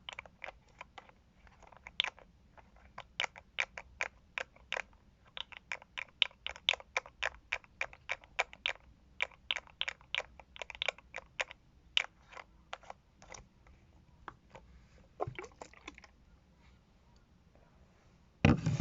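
Cosmetic container lids clicking open and shut, a rapid run of sharp snaps, about three or four a second, that thins out and stops, followed by one louder thump near the end.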